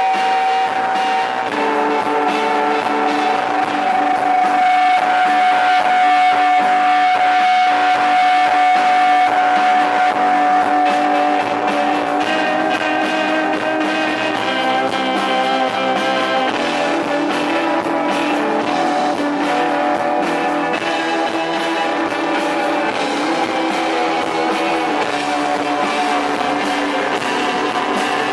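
Live post-punk band playing an instrumental passage: guitars sustaining droning chords, with one steady high note held for the first ten seconds or so before the chords shift.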